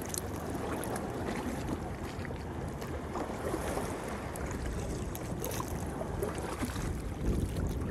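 Wind rumbling on the microphone over water sloshing against a kayak, with faint splashes of double-bladed paddle strokes now and then.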